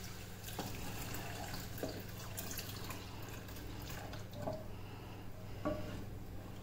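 Milk poured from a glass bowl into a saucepan of melted sugar and butter and stirred in with a wooden spoon, with a few light knocks against the pan, over a steady low hum.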